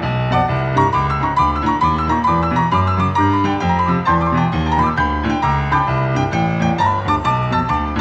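Solo boogie-woogie piano music: a steady rolling bass figure in the left hand under quick, busy right-hand runs and chords.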